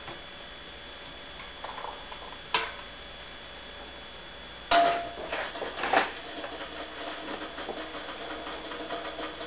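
Hot water from a metal stovetop kettle poured into a plastic measuring cup, with a sudden clatter and splash about halfway through as the kettle is handled and set back on the electric stove. The water then runs steadily from the cup into a bowl of instant potato powder.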